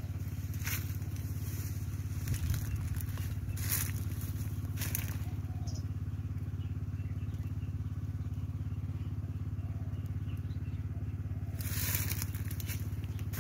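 A small engine running steadily, a low even hum, with a few brief crackles of leaves brushing against the microphone, the longest near the end.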